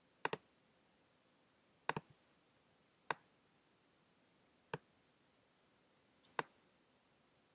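A handful of sharp computer clicks from a mouse or trackpad button, some in quick pairs, spaced irregularly one to two seconds apart over a quiet room.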